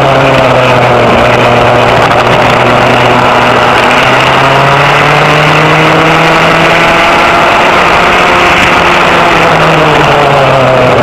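Vintage rear-engine racing kart's engine running loud at race pace, heard onboard. The pitch falls as the kart slows for a corner early on, climbs again on the straight a few seconds in, dips once more about nine seconds in and rises again near the end.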